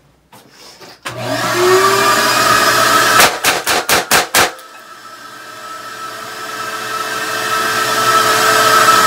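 A blower motor, the blast box's extraction fan, starts about a second in, its pitch rising as it spins up, and keeps running. Over it a Taurus 856 revolver fires six .38 Special shots in rapid double action into the blast box, the whole cylinder emptied in about a second and a half.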